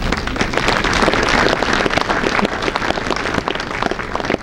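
Audience applauding, many hands clapping at once and thinning out a little near the end.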